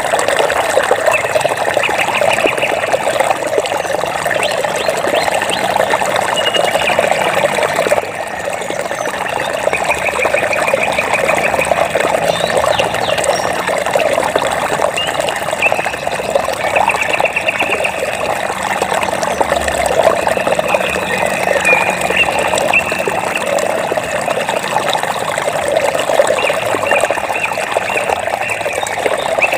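Water flowing and trickling steadily, a natural stream. Short rapid trills from a small animal come back every several seconds above the water.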